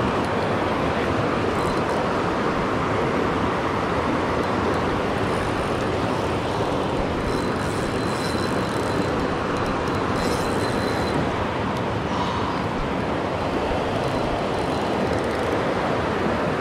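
Fast river water rushing over rocks close to the microphone: a steady, even roar. From about a third of the way in, a faint high whine comes and goes for a few seconds as the spinning reel is cranked.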